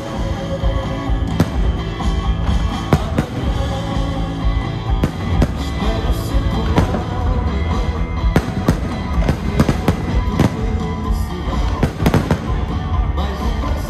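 Fireworks bursting in a steady string of sharp bangs, about one or two a second, over loud recorded music, part of a pyromusical show with the bursts timed to the music.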